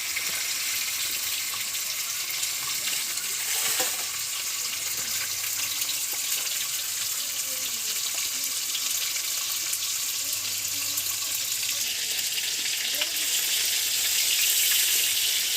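Fish frying in hot oil: a steady sizzling hiss.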